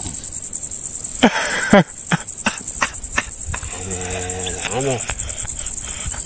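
Crickets chirping in a steady, fast-pulsing high trill. A person's voice is heard briefly about a second in and again around four seconds in, with a few sharp clicks between.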